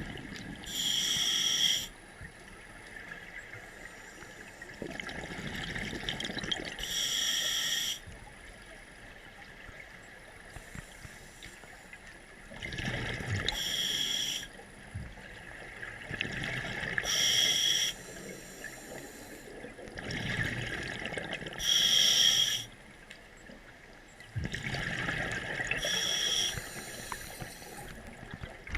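A scuba diver breathing through a regulator underwater: a repeating cycle of hissing inhales from the demand valve and bubbling exhales, about six breaths, each a few seconds apart.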